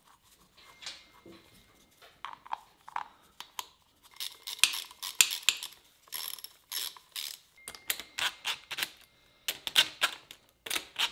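The power valve cover bolts of a Kawasaki KX100 two-stroke engine being run in, with light clinks of small hardware and runs of rapid mechanical clicking that grow denser after a few seconds. Near the end a cordless driver is working on the bolts.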